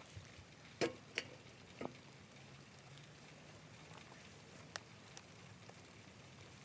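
Faint steady patter of light rain, with a few sharp knocks and clicks scattered through it, two close together about a second in and two more near five seconds.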